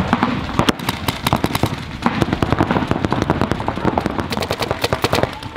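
Paintball markers firing rapid strings of sharp pops, shots following one another many times a second without a break.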